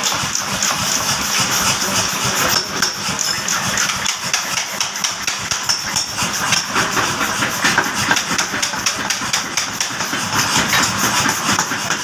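50 kg mechanical power hammer running and striking a red-hot steel trowel blank in rapid, even blows, over the steady din of the machine's motor and drive.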